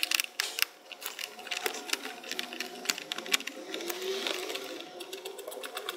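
Quick irregular clicks and taps of a small hand tool working the hidden screw behind a car headlight, metal on metal and plastic, densest in the first second.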